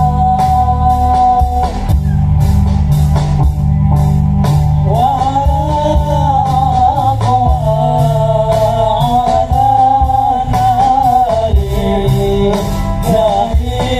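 Live band music played loudly through a large PA sound system: a singer carries a wavering melody over heavy bass and a steady drum beat.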